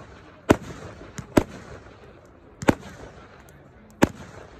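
Ground-fired aerial fireworks going off: four loud, sharp bangs at uneven intervals of about a second, a fainter pop just before the second one, and a low hiss between the shots.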